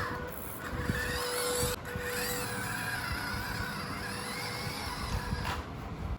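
Small electric motor of an RC truck whining, its pitch wavering up and down with the throttle, over a low rumble from the drivetrain and wheels in sand. The sound changes abruptly twice.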